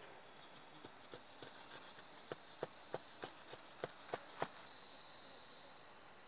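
Machete blade striking and shaving a thin wooden stick, a run of faint sharp clicks about three a second that stops about four and a half seconds in. A high, pulsing insect chirr runs behind.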